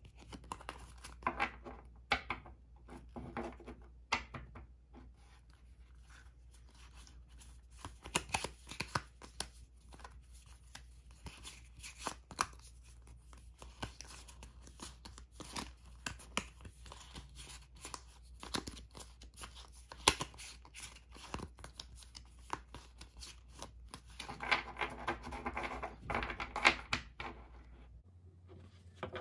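A deck of UNO playing cards being handled and shuffled in the hands: a string of short card snaps and slides, with a denser, louder run of shuffling near the end.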